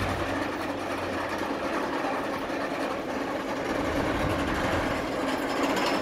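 Rocky Mountain Construction hybrid roller coaster's chain lift hill clicking fast and steadily as the test train is pulled up it.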